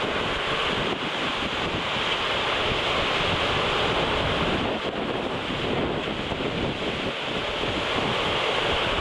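Storm wind buffeting the microphone in irregular gusts over a steady rush of wind-whipped waves churning through a harbor.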